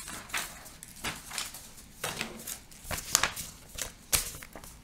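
Sheets of paper being handled and slid across a desk: irregular rustling with soft taps, and sharper taps a little after three seconds and just after four.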